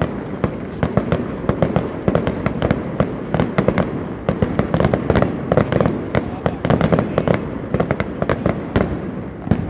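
Aerial fireworks display: shells bursting in a rapid, irregular run of bangs, several a second, over continuous crackling.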